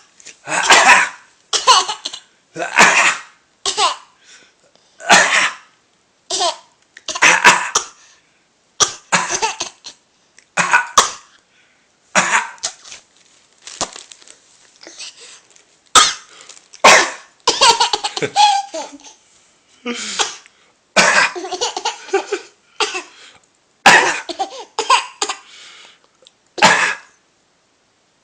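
A man and a young child trading short coughs back and forth, the child copying the man's cough, about one cough a second, mixed with laughter.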